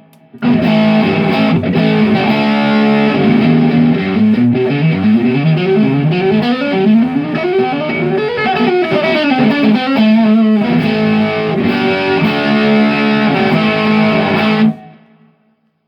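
Electric guitar played through distortion: held chords, then a fast run of single notes climbing and falling in the middle, then chords again, stopping abruptly near the end.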